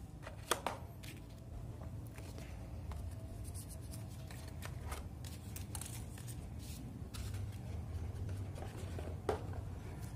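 Faint rustling and tapping of paper and cardboard as a phone's retail box and its paper leaflet are handled, with a sharp click about half a second in and another near the end, over a low steady hum.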